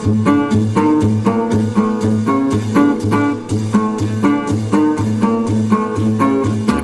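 Instrumental swing jazz with a steady, even beat of bass notes and chords and no singing.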